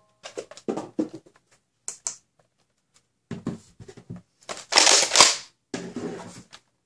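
Plastic clicks and clatter of a Nerf Rival Kronos foam-ball blaster being handled and primed, with a louder burst of mechanism noise about five seconds in that ends in a sharp crack.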